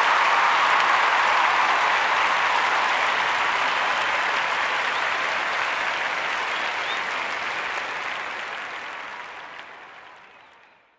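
Applause, dense and steady at first, then fading out over the last four seconds or so.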